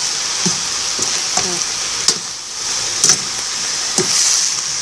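Food sizzling in a hot frying pan, a steady hiss, with a few light knocks and scrapes and two sharper clicks about two and three seconds in.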